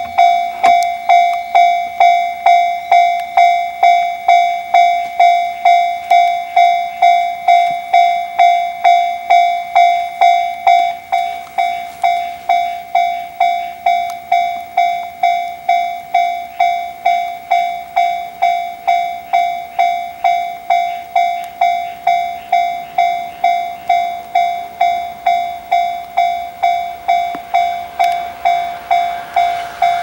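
Japanese level-crossing warning bell ringing, one repeated electronic clang about twice a second. Right at the end, an approaching electric train starts to be heard under it.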